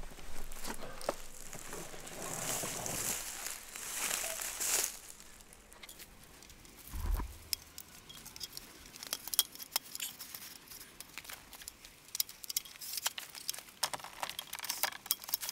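Fabric of a rooftop tent rustling and crinkling as it is pulled out and handled during setup, strongest in the first five seconds. A dull thump comes about seven seconds in, followed by a run of light clicks and taps.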